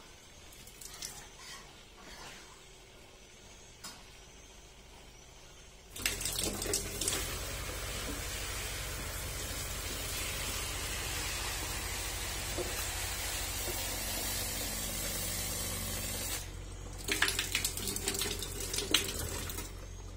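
Quiet handling clicks, then about six seconds in a new Aquafilt 400 gpd RO booster pump starts and runs with a steady low hum while water gushes and splashes from its outlet fitting. Near the end the gushing eases and a few knocks are heard over the hum.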